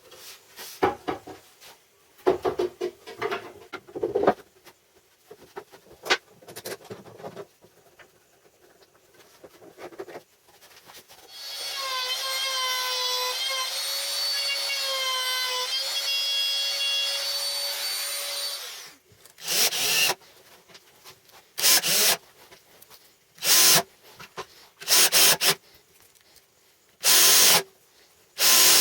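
Workshop tool work: scattered scraping and rubbing, then a steady pitched squeal lasting about seven seconds, then rhythmic rasping strokes about a second long, one every second and a half or so.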